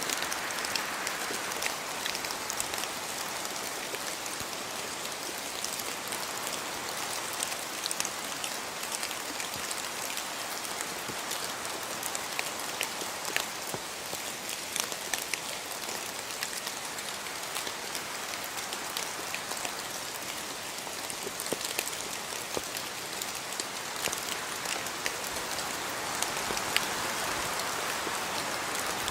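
Steady rain falling, with many separate drops ticking through a constant hiss.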